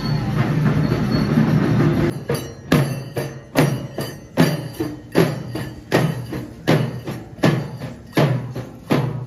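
A band of street drummers beating stick-played barrel and side drums in a steady rhythm: a heavy accented stroke a little faster than once a second, with lighter strokes between. The drumming comes in about two seconds in, after a dense steady rumble.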